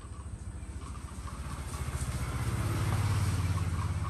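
A small engine passing by: a low drone with a fast, even pulse that grows louder to a peak about three seconds in, then starts to fade.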